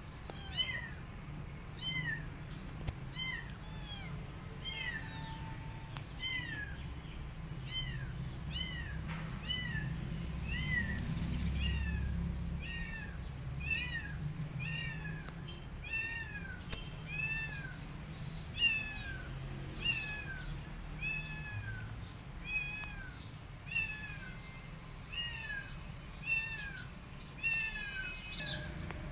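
Young kitten mewing over and over: short high-pitched cries, each rising then falling, a little faster than one a second.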